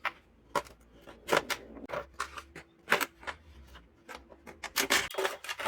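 Scissors cutting through a thin plastic bottle: a series of sharp, irregularly spaced snips and crackles of the plastic, coming faster near the end.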